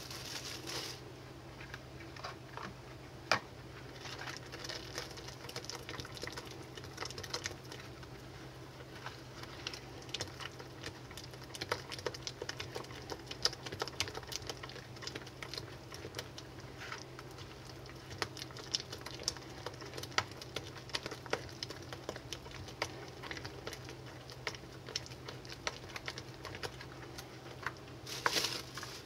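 Silicone spatula stirring and scraping thick soft shave soap paste in a plastic bowl: a run of irregular small clicks, taps and scrapes. Plastic cling wrap crinkles at the start and again near the end, over a steady low hum.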